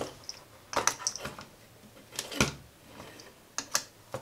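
Irregular light clicks and taps of a small screwdriver and soldering-iron tip against a printed circuit board while components are being desoldered, with one duller knock a little past the middle.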